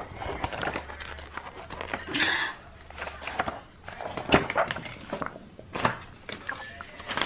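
Paper handling: pages of a printed instruction booklet turning and loose sheets being shuffled, heard as a string of rustles and light knocks with a longer rustle about two seconds in.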